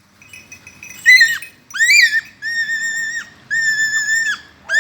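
Dog whining at a high pitch, excited during a chase: two short rising-and-falling yelps, then a string of longer held whines, each most of a second long.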